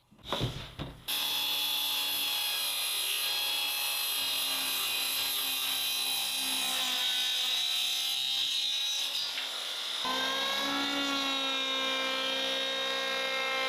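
Power saw cutting through a wooden board. It starts about a second in and runs steadily with a whine, and its pitch rises a little about ten seconds in.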